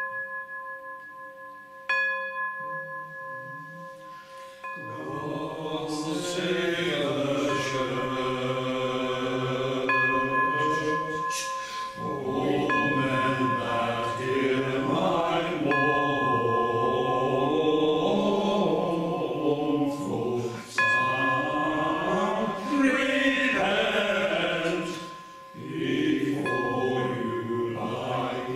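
A bell struck twice near the start and left ringing, then a small choir of men chanting a slow plainchant-style melody in unison, with the bell's ringing tones sounding again now and then under the singing.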